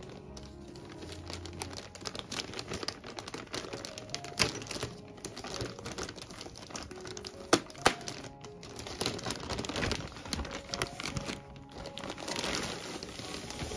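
Thin clear plastic wrapping crinkling and rustling as the fabric bag inside it is handled and lifted, with a few sharp knocks along the way. Soft background music plays underneath.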